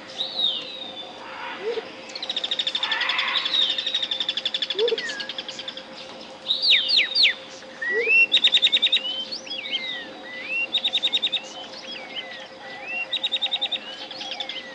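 Tropical jungle birds calling: rapid pulsed trills and short rising and falling whistles, over a steady pure tone at 528 Hz.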